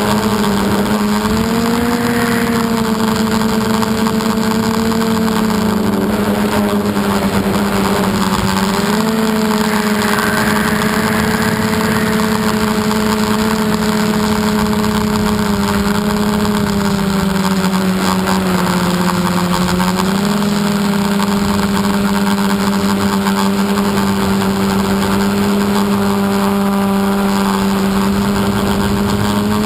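Electric motors and propellers of an FPV multirotor drone humming steadily, recorded by the onboard GoPro. The pitch steps up and down a few times as the throttle changes, over a constant hiss.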